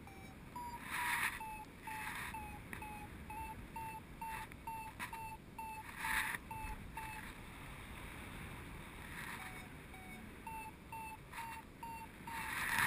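Paragliding variometer beeping in short, evenly spaced pips about two or three times a second, the audio signal that the glider is climbing in lift. Wind rushes over the microphone underneath, swelling in gusts about a second in, around six seconds in and near the end.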